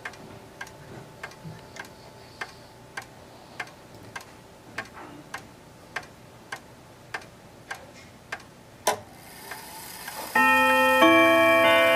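Howard Miller Jennison clock ticking steadily, about three ticks every two seconds. Near the end a louder click and a brief whir as the chime train releases, then the hammers strike the chime rods and several ringing notes overlap: the start of the chime before the clock strikes two.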